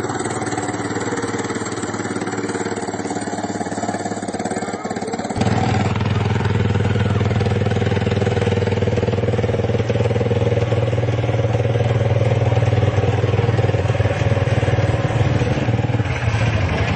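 Small engine of a go-kart-sized Plymouth Superbird replica running steadily. About five seconds in, the sound changes abruptly to a louder, steady low engine hum.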